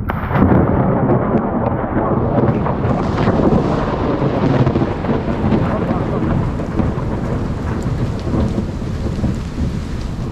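Thunder rumbling in a long, continuous roll over heavy monsoon rain, starting suddenly and loud.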